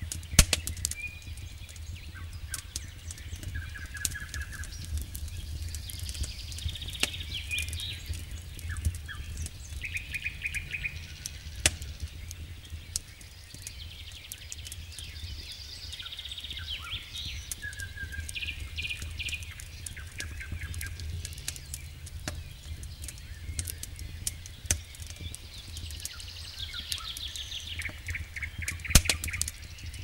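Firewood crackling and popping in an open campfire, with two louder snaps, just after the start and near the end. Birds call in short quick trills over a steady low rumble.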